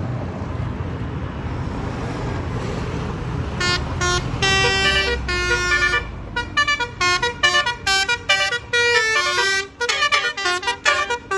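A low bus-engine rumble, then from about four seconds in a Basuri telolet horn, the multi-note musical air horn of an Indonesian tour bus, playing a tune. It starts with a few held notes and then runs into a quick string of short notes at changing pitches.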